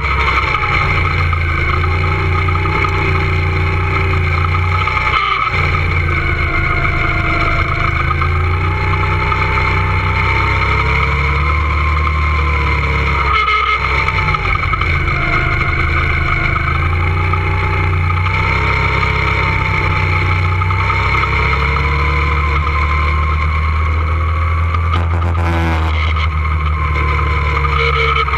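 Go-kart motors running flat out on a track, their pitch rising and falling as the karts speed up and slow through the corners, over a steady low rumble.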